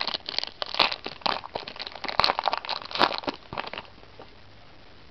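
Foil wrapper of a Yu-Gi-Oh booster pack crinkling and crackling in the hands as the cards are pulled out, stopping about four seconds in.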